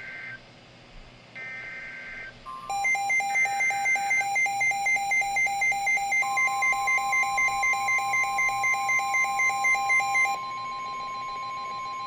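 NOAA Weather Radio alert for a Special Marine Warning: the screechy two-tone data bursts of the SAME header, then a weather radio's loud pulsing alarm beep. About six seconds in, the steady single-pitch warning alarm tone joins and keeps sounding after the beeping stops near the end.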